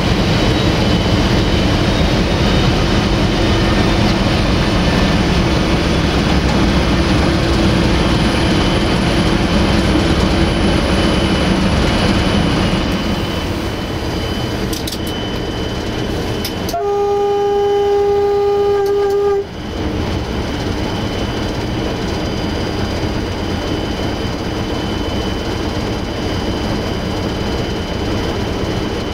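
Inside the cab of a CFR 060-DA diesel-electric locomotive: its Sulzer diesel engine runs steadily with track noise. A little over halfway through, the locomotive's horn sounds one steady blast lasting about two and a half seconds.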